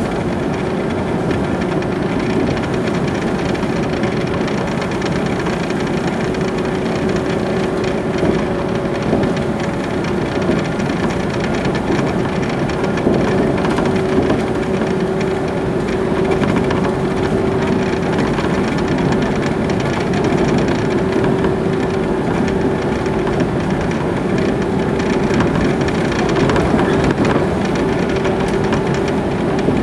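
Running noise of a JR East Jōetsu Line electric train heard from inside the passenger car: a steady rumble of wheels on rails, with a faint steady hum underneath and occasional small clicks from the rail joints.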